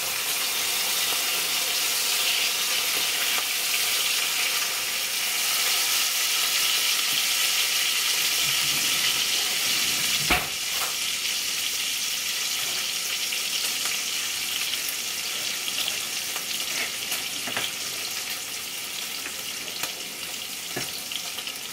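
Food frying in a pan on the stove, a steady sizzle. There is one sharp clack about ten seconds in, and the sizzle grows a little quieter toward the end.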